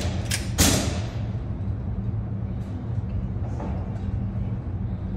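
Two pistol shots from a 9mm Glock 48 MOS, fired quickly one after the other less than half a second apart near the start, each echoing in an indoor range. A steady low rumble runs underneath.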